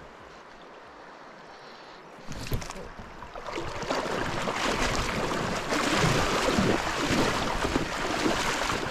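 River water splashing and sloshing close to the microphone. It starts about two seconds in and grows into a steady, loud rush that lasts until the end.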